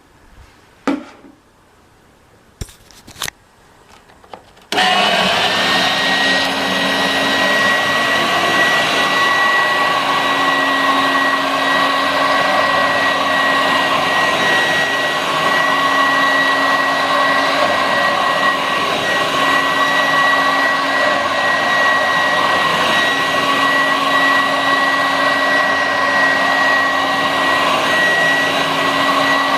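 A few handling clicks, then a 1986 Vorwerk VK 117 upright vacuum cleaner with powerhead switches on about five seconds in and runs steadily with a high whine, vacuuming sawdust from carpet.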